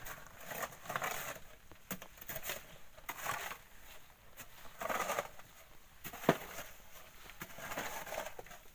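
Hand digging into a bank of volcanic sand and gravel: a tool scraping and loosening the sand in irregular strokes every second or two, with one sharp knock about six seconds in.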